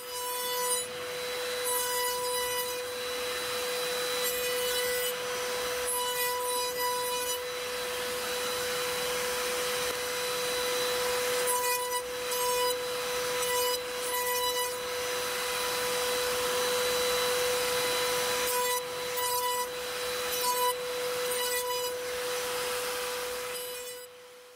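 Table-mounted wood router running at high speed with a steady high whine, its bearing-guided bit trimming a thin wooden strip. The cutting noise swells and eases again and again as the strip is pushed along the bit.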